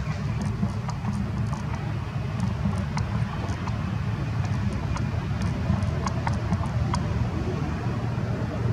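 Steady low outdoor rumble with scattered light clicks and ticks.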